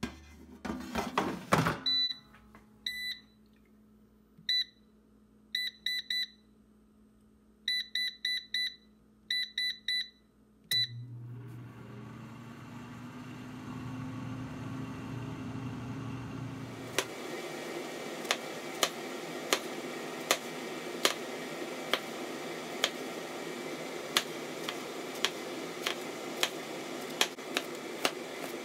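An air fryer basket clatters into place, then the digital control panel beeps several times in short runs as it is set to 400 °F, and the fan starts with a low hum that rises in pitch. After that, a chef's knife chops a green bell pepper on a plastic cutting board, in steady strokes a little over one a second.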